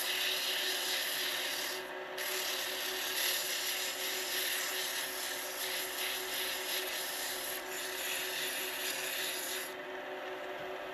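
Sandpaper hissing against a bolly gum pen blank spinning on a wood lathe, over the lathe motor's steady hum. The sanding breaks off briefly about two seconds in and stops near the end, leaving the lathe running.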